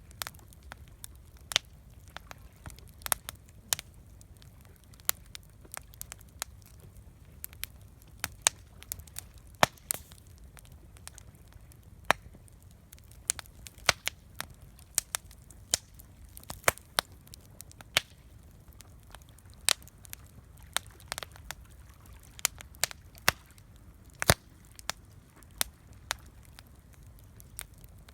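Wood campfire crackling, with irregular sharp pops and snaps, sometimes several close together, over a low steady rumble.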